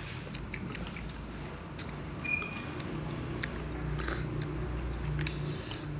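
Eating noodles from a clay pot: scattered light clicks of wooden chopsticks against the pot, over a steady low hum.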